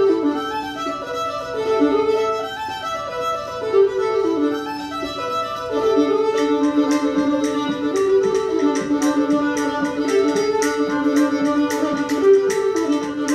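Fiddle playing an old-time tune. About halfway through, sharp clicks come in and keep a steady beat under the melody.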